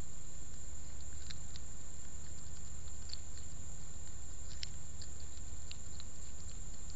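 Groundhog chewing food held in its paws: small irregular crunches and clicks over a steady low hum.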